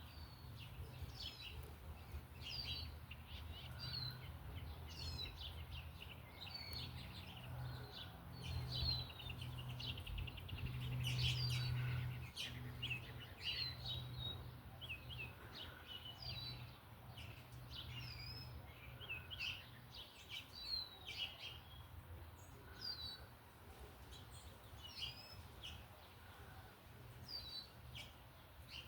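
Small birds at a backyard feeder chirping and calling, many short high chirps and quick sweeping notes coming every second or so, over a steady low hum.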